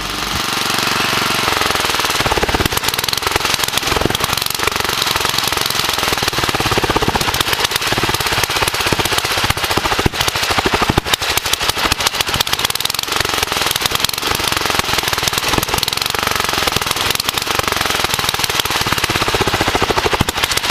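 Wisconsin AENL single-cylinder air-cooled engine running loud with no muffler, its open exhaust firing a fast, hard popping beat while throwing flames.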